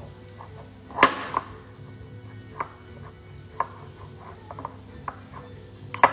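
Metal fork clinking and scraping against a ceramic bowl while mashing and crumbling blue cheese, with sharp taps about once a second, the loudest about a second in and near the end.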